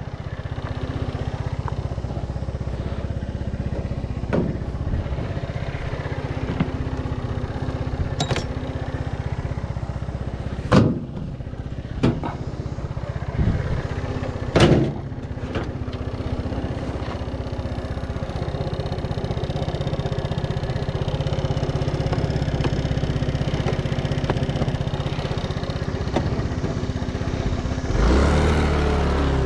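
A motor vehicle engine running steadily, with several sharp knocks and clatters over it. Near the end the engine note changes and gets a little louder.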